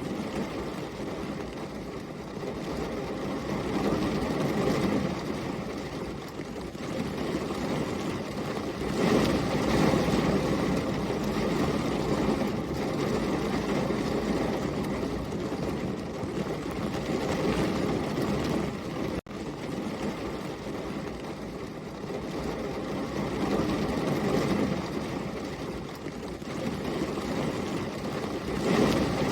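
Heavy rain falling steadily in a dense wash of noise, swelling louder and easing back in slow waves, with a momentary drop-out about two-thirds of the way through.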